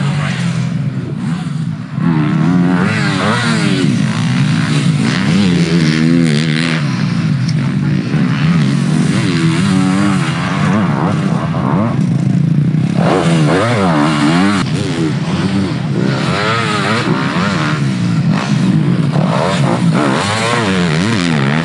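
Yamaha YZ250F 250cc four-stroke single-cylinder motocross engines under hard throttle. The pitch climbs and drops again and again as the riders rev, shift and chop the throttle on the dirt track.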